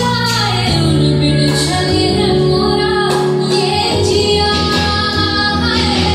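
Recorded song with a woman singing long, gliding notes over steady low instrumental backing.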